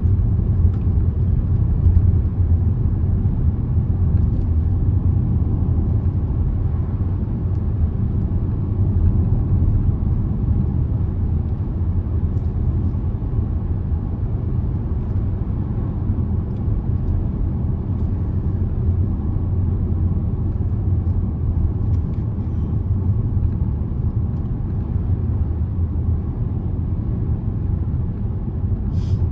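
Steady low rumble of a Range Rover driving at road speed, heard from inside the cabin.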